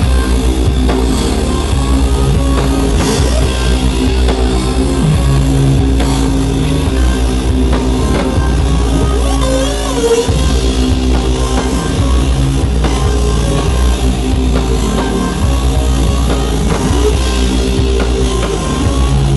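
A band playing loud live rock music with a driving drum kit, heard from within the crowd at a club show, with a brief dip in the sound about halfway through.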